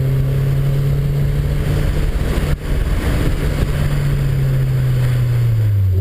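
Car engine heard from inside the cabin, running steadily under load on a racetrack, with a brief dip in level about two and a half seconds in. Near the end the engine note falls as the revs drop.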